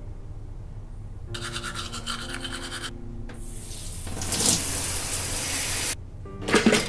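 A shower running, a loud steady hiss of water that swells about a second in and cuts off suddenly, then a toaster popping up with a short clunk near the end. Before the water, a brief buzzing rasp lasts about a second and a half.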